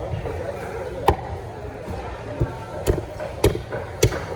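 A knife chopping through a rock snapper on a cutting board to cut it into small pieces, in sharp single strokes: four loud chops and one lighter one, irregularly spaced, with background chatter.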